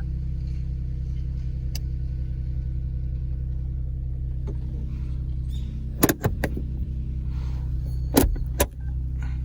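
Daihatsu Copen's engine idling steadily, with a few sharp clicks and knocks, two loud pairs of them about six and eight seconds in.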